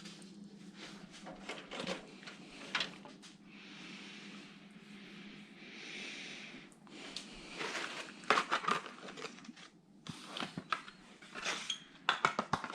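Hands handling computer parts: a run of small sharp clicks and knocks, with soft rustling in the middle, and the clicks coming thicker near the end.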